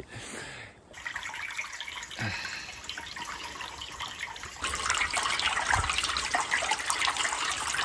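Brook water splashing and trickling into a hand-built irrigation diversion, only a thin flow running. It gets louder a little past halfway through.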